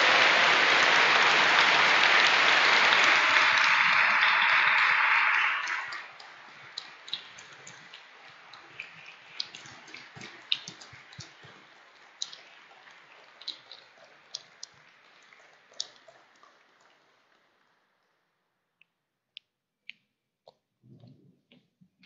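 Audience applauding, then cutting off sharply about six seconds in. After that only faint scattered claps and knocks, dying away to near silence with a few isolated clicks near the end.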